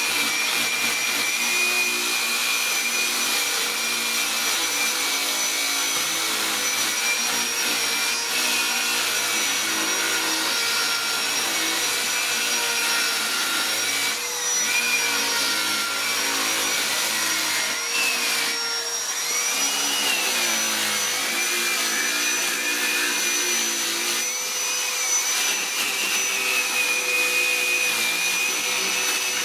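Small electric angle grinder with a carving disc running with a steady high whine as it grinds into carved wood. Its pitch sags and recovers several times in the second half, as the disc bites in under load.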